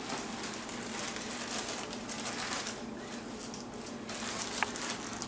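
Clear plastic bag crinkling and rustling as hands work inside it, an irregular crackle, with a faint steady hum underneath.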